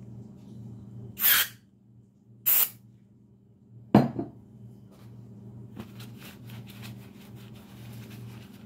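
Two short blasts of an aerosol gun-cleaning spray onto a pistol barrel, followed by a sharp knock about four seconds in. After that comes cloth rubbing and crinkling as the parts are wiped.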